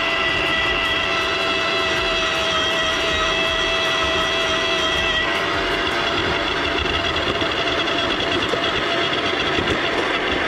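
Ryobi 40V HP brushless cordless earth auger with an 8-inch bit running steadily in the soil, its motor and gearbox giving a steady whine with several high tones.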